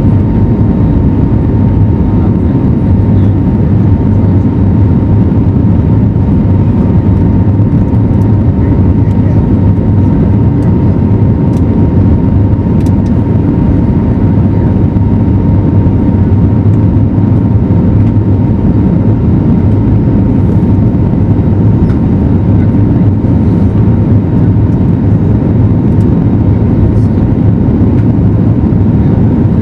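Airbus A320neo cabin noise under high engine thrust during takeoff and climb: a steady, loud rush of engine and airflow noise, heaviest in the low range, with a constant whine held over it.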